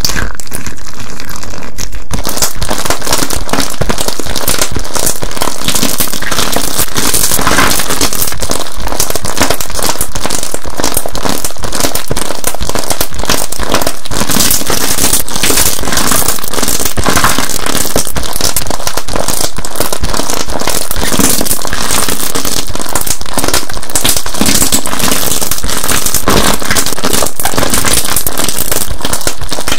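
Crunchy slime being squished and poked, with a dense, continuous crackling and popping.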